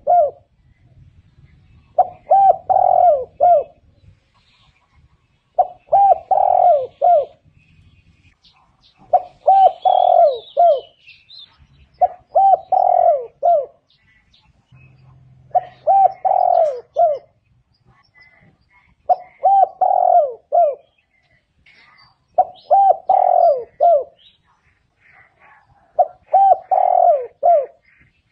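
Spotted dove cooing: a phrase of several low coos, repeated about every three and a half seconds, eight times. Faint chirps of small birds sound between the phrases.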